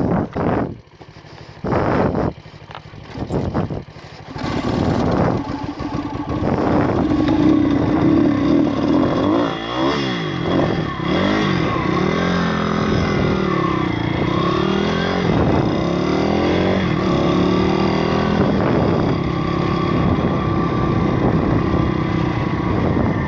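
Stomp pit bike's YX 160cc four-stroke engine, first in short bursts of throttle with dips between for about four seconds, then running continuously as the bike is ridden, the revs rising and falling. It has to be held high in the revs because it cuts out at low revs, which the rider thinks might be the valves.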